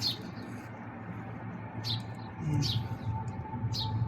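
Small birds chirping: short, sharp chirps about once a second, over a steady low background hum.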